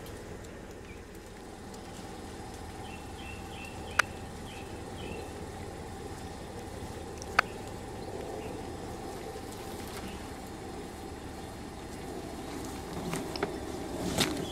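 Small hatchback's engine idling steadily, with a few short bird chirps about three to five seconds in and two sharp clicks, about four and seven seconds in.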